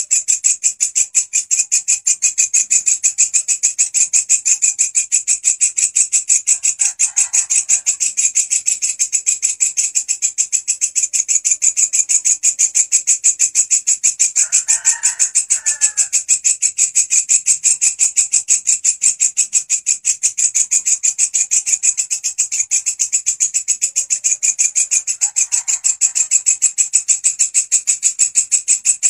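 Walang kecek katydid (bush cricket) singing: a loud, high-pitched, fast and very even pulsing chirr that runs without a break.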